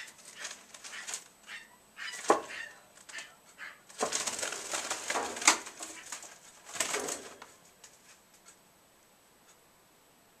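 Parrotlet fluttering and scrabbling in its cage in several short noisy bursts with sharp knocks, going quiet after about eight seconds. It is the flailing of a sick bird that cannot perch and keeps losing its balance.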